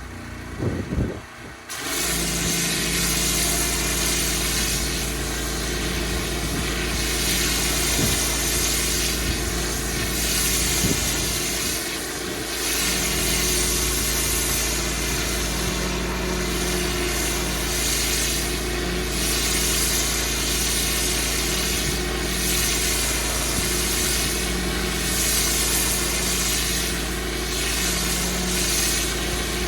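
Pressure washer running with its jet spraying block paving: a steady engine hum under a loud hiss of water. The sound drops out briefly about a second in, then runs on steadily.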